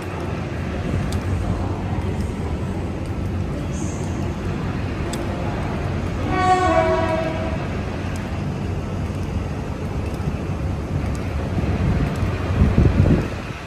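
Southern Aurora stainless-steel passenger carriages rolling slowly past with a steady low rumble. About six seconds in, a train horn sounds once for about a second, in two notes, the second a little lower.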